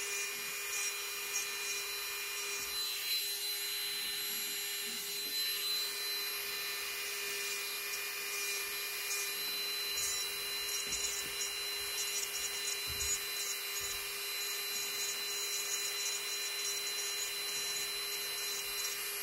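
Electric manicure nail drill running with a steady whine, its thin cone-shaped bit rubbing over the cuticle and side nail folds as the dead skin is cleaned away.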